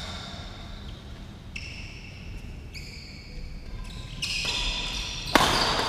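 Shoes squeaking on an indoor court floor: several high squeals lasting about a second each. About five seconds in comes one sharp, loud crack of a racket striking the shuttlecock.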